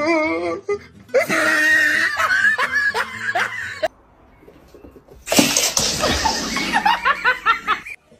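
A person laughing in two long bouts: the first from about a second in to about four seconds, the second from just after five seconds until near the end.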